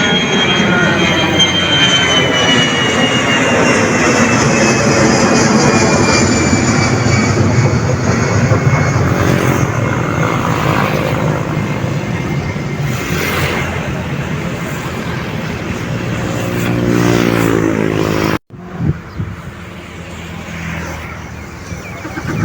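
Airliner engines passing close by: loud engine noise with a high whine that falls slowly in pitch as the aircraft goes past. The sound cuts off suddenly about eighteen seconds in, and quieter sound follows.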